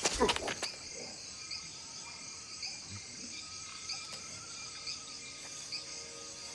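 Night jungle ambience of chirping insects: a high chirp repeating about twice a second, with softer trills in between. A few sharp clicks or knocks at the very start are the loudest sounds.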